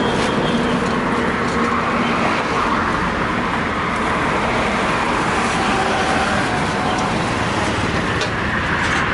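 Steady roadside traffic noise, with the rush of passing vehicles swelling a couple of seconds in and again near the end.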